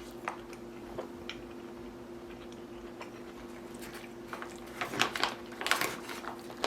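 Eating a rehydrated chicken and vegetable meal from its pouch: soft clicks and chewing, then a cluster of louder scrapes and clicks between about five and six seconds in, over a steady low hum.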